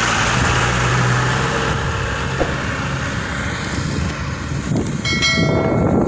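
Loaded truck driving away, its engine running steadily and easing off as it pulls into the distance.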